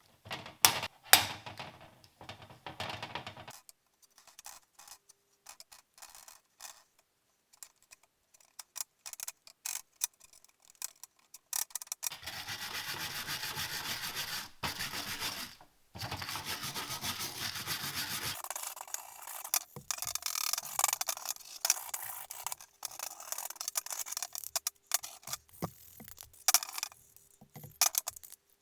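Rubbing and scraping on a small model car during its restoration: irregular strokes and clicks, with two steady spells of a few seconds each near the middle.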